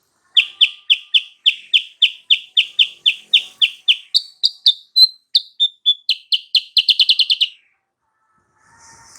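Silver-eared mesia (kutilang sutra) singing: a run of sharp, evenly repeated chirps about four a second, then a few higher, slower notes, then the notes speed up into a fast trill that stops about seven and a half seconds in.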